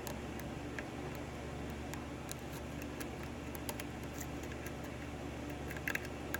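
Faint metallic clicks and ticks of a lock pick and tension wrench working the pins of a 6-pin Dorma pin-tumbler lock, scattered irregularly with a short cluster near the end, over a steady background hum.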